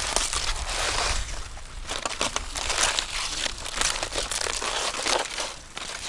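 Charred aluminium foil being crinkled and pulled open by hand, unwrapping a parcel cooked in the ground under a fire: a run of irregular crackling rustles.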